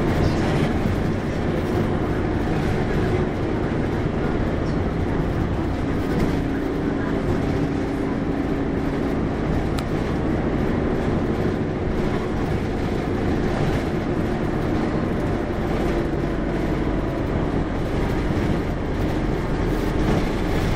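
Hino QDG-KV290N1 city bus under way, heard from inside: steady diesel engine and road noise with a faint low hum that shifts a little in pitch.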